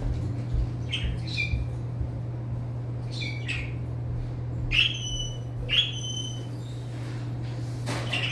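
Pet parrot giving a run of short, sharp squawky calls, about seven of them, each a quick high note, over a steady low hum.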